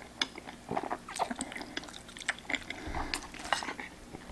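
Mouth sounds of a person eating creamy pasta: a noodle strand drawn in at the lips, then wet chewing with many small, irregular clicks and smacks.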